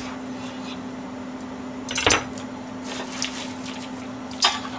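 Kitchen utensils knocking: two sharp knocks, about two seconds in and near the end, with fainter clicks between, over a steady low hum.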